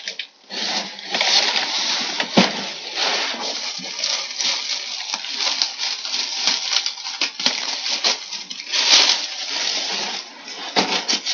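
Thin paper wrapping crinkling and rustling as a large wrapped box is handled and turned, with a sharp knock about two seconds in and another past seven seconds.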